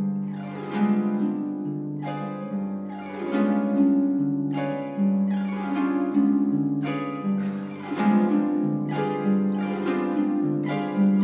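Concert pedal harp played solo: plucked, rolled chords and runs over ringing bass notes, with a new chord struck about every second.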